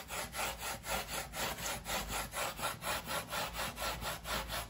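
A bristle paintbrush scrubbing back and forth over a carved polystyrene stone wall in quick, even strokes. It is working a thin, diluted acrylic base coat into the joints.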